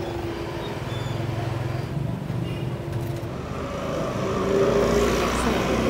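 Street traffic with motorbike engines running. A steady hum is heard through the first half, and a low engine rumble grows louder near the end as a motorbike comes close.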